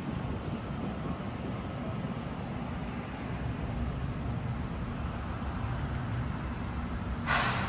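Steady low rumble of road traffic: cars idling and creeping along the street. A short hiss cuts in near the end.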